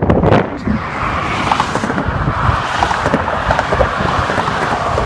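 Highway traffic passing close by at speed, a steady road rumble, with wind buffeting the microphone loudest in the first half second.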